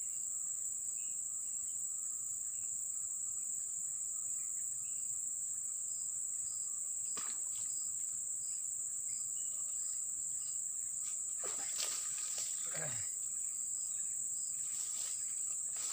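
Steady high-pitched insect drone from the surrounding forest, unbroken throughout. A few short noises come about three quarters of the way through.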